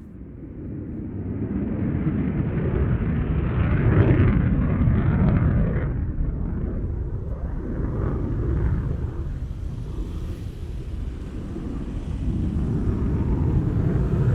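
Eurofighter Typhoon jet flying a display pass, its engines a deep rumble. The rumble builds over the first couple of seconds, peaks about four seconds in, eases off, and swells again near the end.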